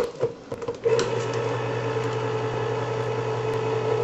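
Electric can opener: a few clicks and clunks as the can is latched under the cutter lever, then from about a second in its motor starts and runs with a steady hum, cutting the lid of a tin can.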